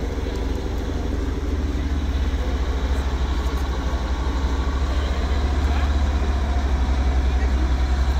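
A motor vehicle's engine running steadily, a low rumble with a fast, even pulse that grows a little louder in the second half.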